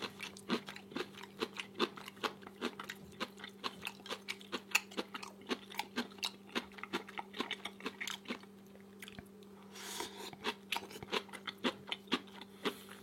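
Close-up chewing of crunchy kimchi, with a quick run of wet crisp crunches that pauses briefly about two-thirds of the way through and then resumes.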